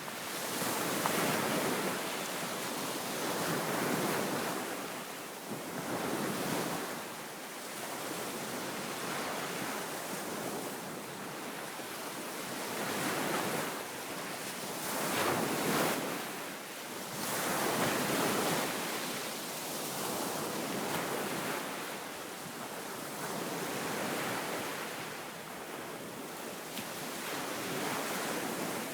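Waves breaking and washing on a sandy beach, the surf swelling and ebbing every few seconds, with wind blowing over the microphone. The sea is being stirred up by a strong east wind ahead of an approaching typhoon.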